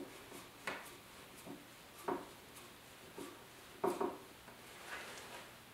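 Hand screwdriver driving a wood screw through a metal hinge into fiberglass-reinforced epoxy filling in particle board: a few faint creaks and clicks, a second or more apart, as the screw tightens and bites firmly.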